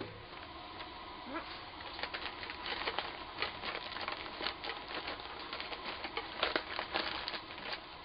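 Paper filter bag of a dust extractor being handled and fitted: irregular crinkling rustles with light taps and clicks.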